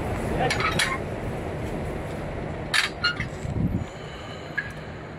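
Sharp metallic clinks and a dull knock as the aluminium frame of an ultrasonic drill hole monitor is handled over a bored hole. There is a pair of clinks about half a second in and a cluster of clinks about three seconds in. Under them runs a low rumble that dies away partway through.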